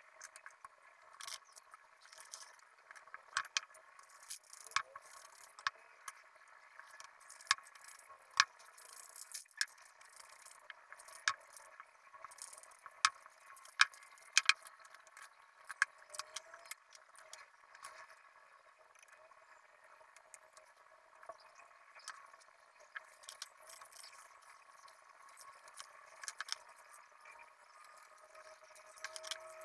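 Small pebbles, a tin lid and spray cans being set down and shifted on a spray-paint poster, giving many sharp clicks, taps and rattles at irregular intervals, with a few short hisses from an aerosol spray can.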